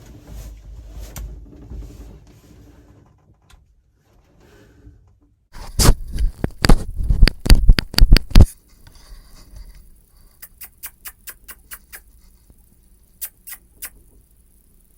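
Close handling noise: rustling, then a burst of sharp knocks and scrapes lasting about three seconds, followed by a run of quick, light clicks.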